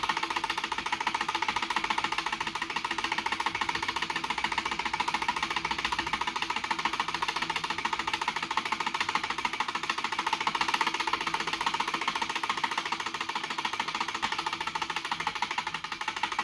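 Wind-up clockwork timer of a pop-up shape board game ticking rapidly and evenly as it runs down its countdown.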